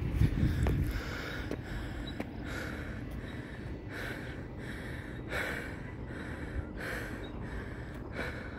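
A man breathing hard close to the microphone, a breath roughly every second, out of breath from climbing a steep hill. A low rumble in the first second.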